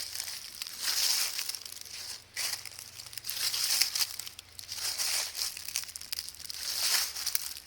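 Footsteps crunching through dry fallen autumn leaves, about one step a second.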